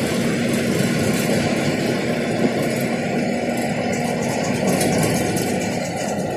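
A luxury coach's engine and road noise heard from the driver's cabin at highway speed: a steady drone with a faint hum in the first half.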